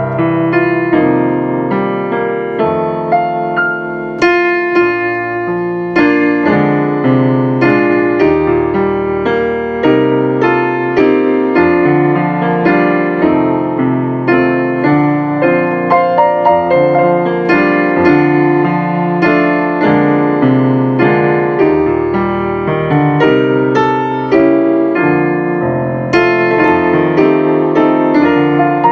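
Electronic keyboard played with a piano voice: a melody over held chords.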